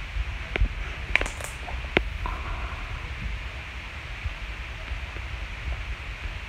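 Handling sounds of slime and a lotion pump bottle on a stone countertop: a few sharp clicks and pops in the first two seconds, then a steady faint hiss with a low rumble.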